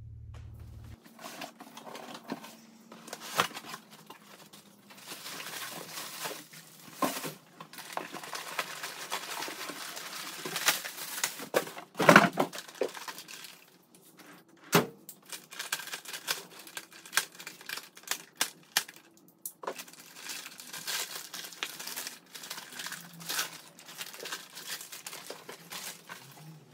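Plastic bag wrapping and cardboard packaging being torn open and crinkled as a rebuilt turbocharger is unpacked, with irregular rustling and clicks and one loud knock about twelve seconds in.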